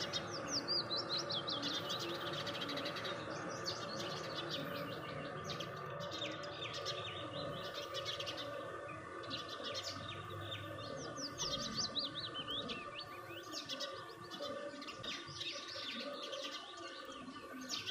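A group of small birds chirping, many short, quick calls overlapping without pause, over a steady humming drone.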